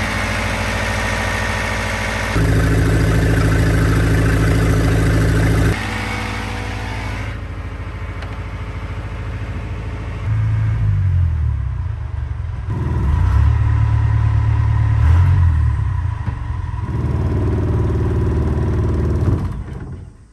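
Yanmar inboard marine diesel engine running, mostly at idle. Its note changes several times: louder from about two to six seconds in, and rising in speed around ten seconds and again around thirteen to fifteen seconds. It drops away sharply near the end.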